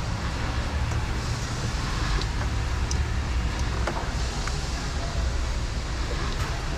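A steady low rumble of vehicle or traffic noise, with a few faint light clicks.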